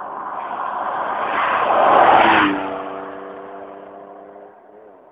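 Holden VS Commodore V6 with Pacemaker headers and a full twin exhaust driving past. The exhaust note builds as it approaches, is loudest about two seconds in, then drops in pitch and fades as the car moves away.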